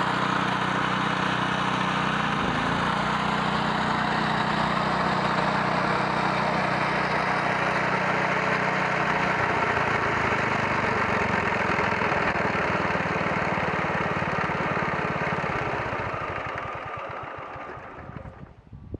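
Bolens 1050 lawn tractor's engine running with the mower deck, steady at first and changing in tone about halfway through, then dying away over the last few seconds.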